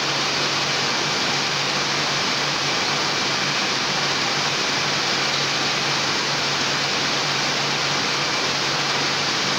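Heidelberg Speedmaster SM 74 sheet-fed offset printing press running at production speed: a steady, dense mechanical noise with a low hum and a faint high whine.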